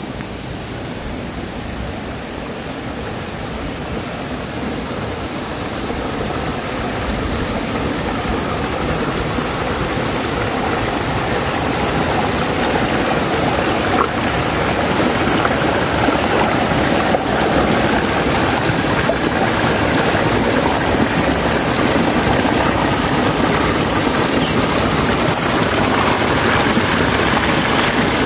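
Fast-flowing water rushing down a small stone-edged ditch, a steady rush that grows louder over the first several seconds, then holds level.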